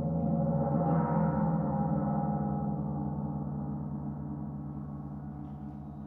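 Gong ringing on with many overlapping tones, swelling slightly about a second in and then slowly dying away.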